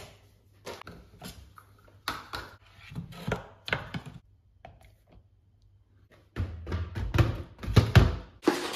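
A large plastic protein-powder tub being handled: the screw lid twisted off, then a plastic scoop scraping and tapping in the powder. About six seconds in come the loudest sounds, a run of thuds and knocks as the lid is put back on.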